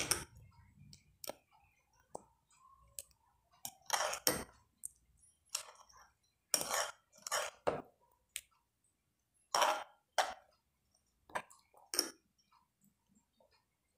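Metal spoon stirring a thick, wet lemon chutney paste in a glass bowl, scraping and clinking against the glass in irregular strokes. The strokes stop near the end.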